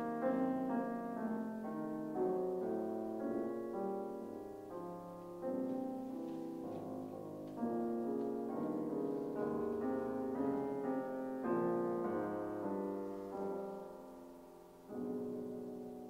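Fazioli concert grand piano played solo in a slow, sustained passage of chords. Near the end the sound dies down, then a fresh chord is struck and left to ring away.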